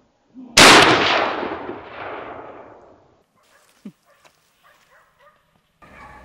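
A single hunting-rifle shot fired at a running wild boar about half a second in, its report echoing and dying away over two to three seconds. A few faint clicks follow.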